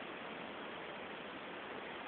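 Steady, even hiss with nothing else standing out.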